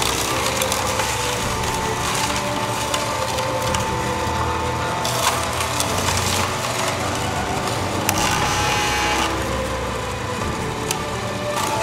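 Omega J8006HDC single-auger slow juicer crushing celery stalks, a steady crackling and snapping of the stalks being ground, over a steady hum.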